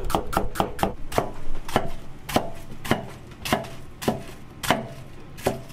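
Kitchen knife chopping onion and cabbage on a plastic cutting board, each stroke knocking on the board. The first strokes come quickly, about four or five a second; after about a second and a half they slow to an even cut roughly every half second.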